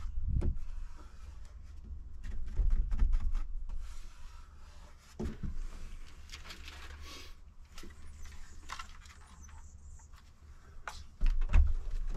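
Rubbing and scraping handling noise with scattered light knocks over a low rumble, as a marine speaker is worked into its cut-out by hand.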